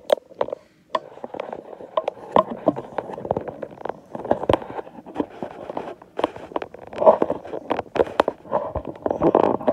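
Handling noise: rubbing and rustling on the phone's microphone as it is moved about, with many irregular knocks and clicks.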